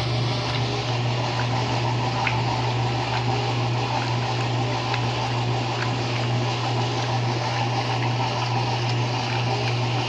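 Electrolux LE08 washing machine running: a steady motor hum with water moving inside the machine.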